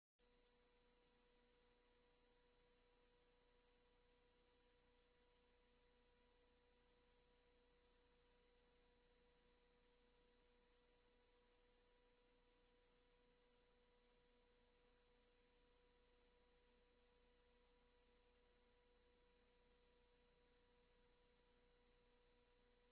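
Near silence: a faint steady hiss with a few thin, unchanging electronic tones, the noise floor of an idle audio feed. It begins abruptly at the start.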